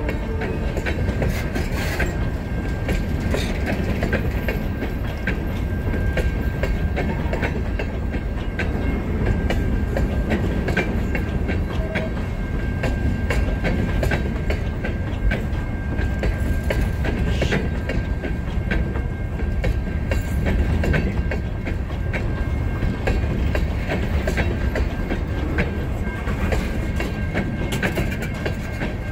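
Freight cars rolling past close by: covered hoppers and then bulkhead flatcars, a steady rumble with wheels clicking over the rail joints. A thin steady high tone runs over it.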